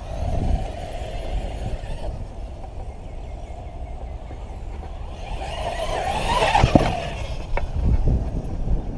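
Whine of a Thunder Tiger eMTA Kaiser RC monster truck's 2000kv brushless motor on 6S LiPo as the truck runs across grass. The whine is faint at first and loudest about six to seven seconds in as the truck speeds close by, over a steady low rumble.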